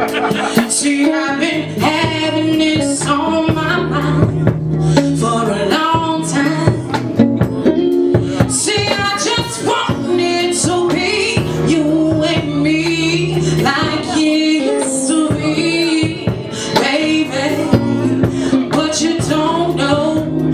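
Live band playing a song with singing voices over bass guitar, drums and keyboard, with a regular drum beat throughout.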